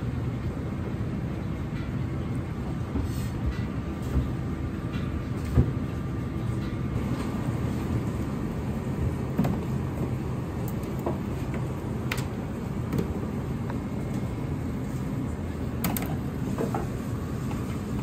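Steady low rumble of a commercial kitchen's background machinery, with a few light clicks and taps scattered through it.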